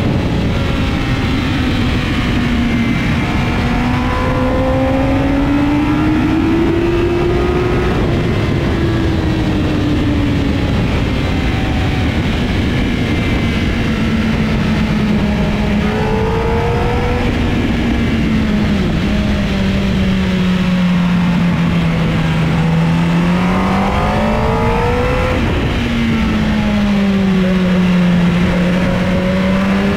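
A vehicle engine running at varying speed, its pitch rising and falling slowly over a few seconds at a time, with a few sudden drops in pitch. Under it runs a constant loud rush of noise.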